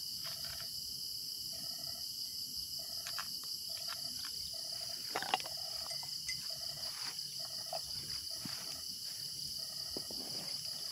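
Crickets trilling steadily, with a frog giving short repeated calls about once a second. A single sharp click about five seconds in.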